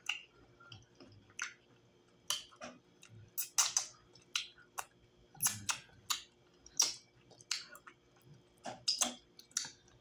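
Close-miked wet mouth sounds of eating fufu with slimy ogbono soup by hand: sharp smacks and clicks of chewing and of sucking soup off the fingers, irregular, about one or two a second.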